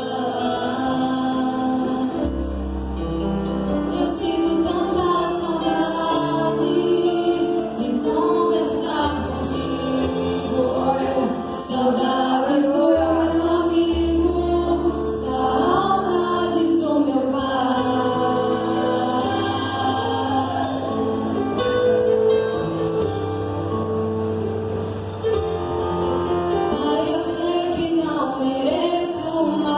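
A band playing a song, with voices singing over bass notes that shift every couple of seconds.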